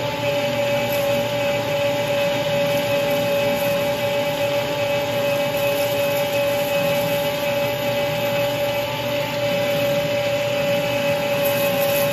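Metal lathe running at a steady speed with a steady gear whine, its tool taking a cut on a tractor shaft collar under power feed toward a carriage stop.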